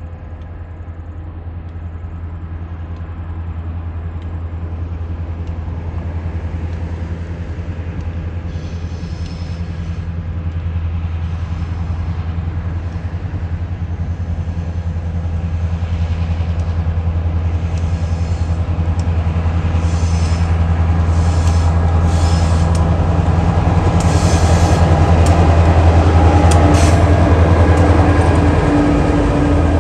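Two TasRail diesel locomotives, 2054 and 2051, hauling loaded coal wagons: a steady low engine drone that grows louder as the train approaches. Short high-pitched wheel squeals come in repeatedly from about eight seconds in.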